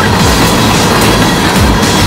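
Freight train of open-top hopper cars rolling past close by, a loud steady rumble with the wheels clacking over rail joints.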